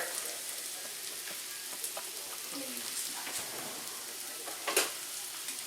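Potato wedges searing in a hot skillet, a steady sizzle of frying, with a light knock about five seconds in.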